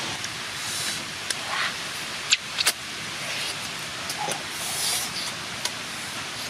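Close-up eating sounds of someone biting and chewing grilled catfish by hand: a scatter of sharp wet smacks and clicks over a steady hiss, the loudest a little over two seconds in.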